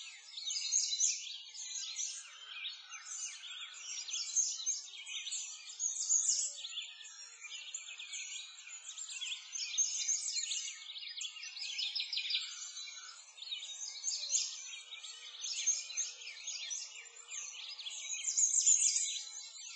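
A birdsong ambience: many small birds chirping and twittering at once, a dense high-pitched chorus with nothing low beneath it.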